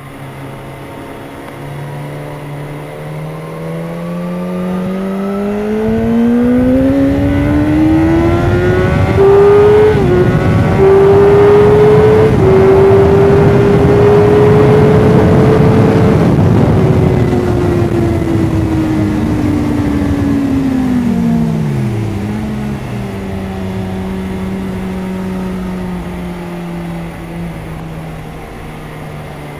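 Onboard sound of a BMW S1000RR inline-four sportbike engine under full throttle: the note climbs steadily with two quick upshifts about ten and twelve seconds in, then falls away as the rider rolls off and slows for a corner, settling to a steady lower drone. Wind rush swells with the speed and fades as it slows.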